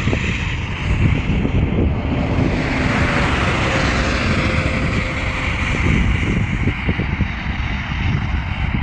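Road traffic noise with a heavy, ragged low rumble throughout; the hiss swells in the middle as a vehicle goes by, then eases off.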